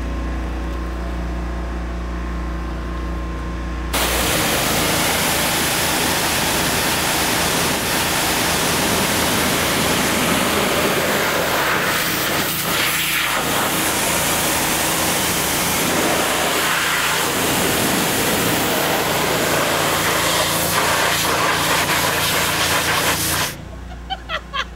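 Pressure washer's engine running steadily, then about four seconds in the spray gun opens: a loud, steady hiss of the high-pressure water jet that runs for about twenty seconds and cuts off suddenly near the end.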